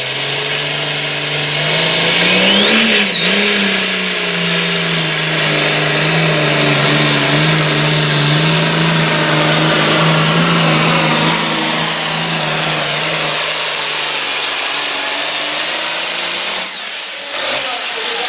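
International 1086 Super Farm pulling tractor's turbocharged diesel at full throttle, hauling the sled down the track. The engine note climbs over the first few seconds, then holds steady. It drops off sharply near the end as the pull finishes.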